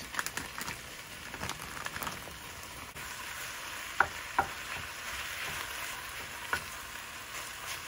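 Ground beef and chopped onion sizzling in oil in an enamelled cast-iron pot while a wooden spatula stirs them. The sizzle grows steadier about three seconds in, with a few sharp knocks of the spatula against the pot.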